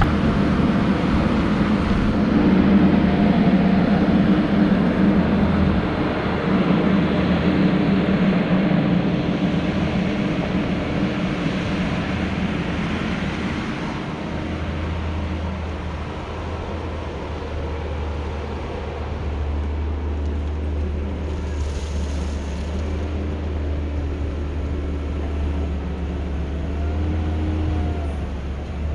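Kubota SVL90-2 compact track loader's diesel engine running under load as the machine works in mud. The sound settles into a steadier low hum about halfway through.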